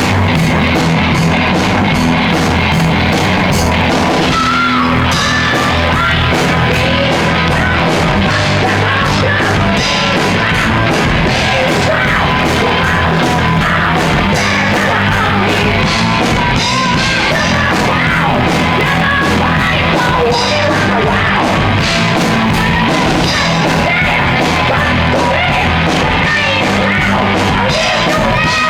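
Loud hard rock music from a full band: a steady drum beat under shouted, yelled singing.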